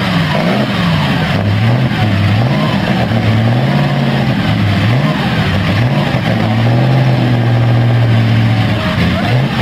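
A 1934 Maserati 8CM's supercharged straight-eight engine, just started, being blipped: the revs rise and fall about once a second, then are held up steadily for about two seconds before more quick blips.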